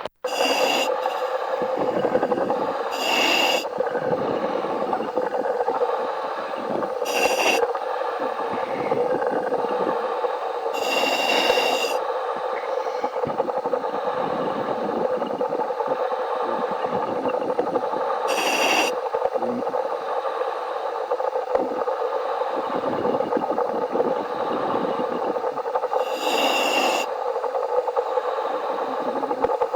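Underwater wet stick welding with a 1/8-inch electrode: the arc crackles and sputters steadily, with a brief hiss every four to eight seconds.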